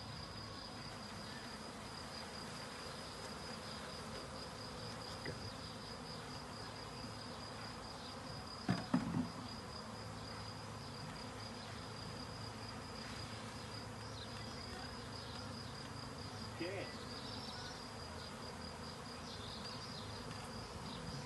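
A honeybee swarm buzzing steadily around the hive box it is being shaken into, with a steady high trill underneath. A few knocks come about nine seconds in.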